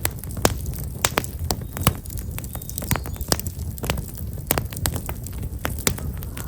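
Campfire of black locust (false acacia) logs crackling, with sharp irregular pops several times a second over a low steady rumble of the flames.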